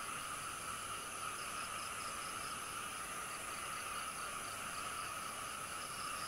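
Night insects calling: a steady, unbroken buzzing drone with a cricket chirping in a fast, even rhythm over it.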